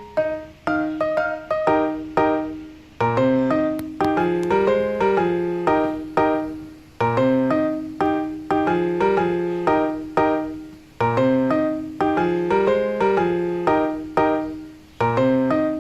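Background music on piano or electric keyboard: plucked-sounding notes that fade after each strike, in a phrase repeating about every four seconds.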